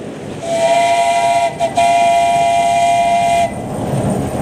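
Steam locomotive whistle blown twice as the train approaches: a short blast of about a second, then a longer, steady blast of nearly two seconds.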